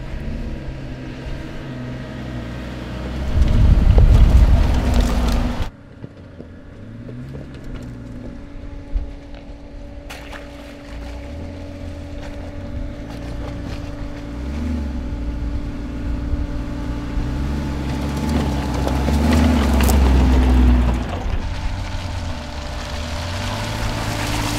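Mercedes-Maybach G 650 Landaulet's twin-turbo V12 engine pulling at low speed off road, its pitch rising and falling with the throttle. A louder surge comes about four seconds in and breaks off suddenly, then the engine note builds again in the second half.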